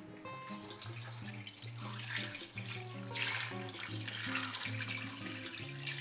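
Water poured from a glass jug into a stainless steel stockpot, splashing onto chicken legs, leeks and carrots, with the pour swelling louder a couple of times. Background music plays underneath.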